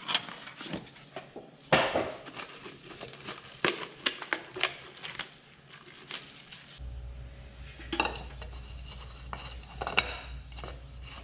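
A new spin-on oil filter being handled and screwed onto a tractor engine's filter mount: irregular metallic clicks and clinks with light rustling. About seven seconds in, a low steady hum starts under the handling noises.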